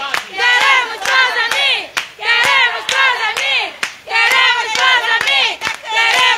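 A small group of people chanting loudly together in short repeated phrases, about one a second, with hand claps.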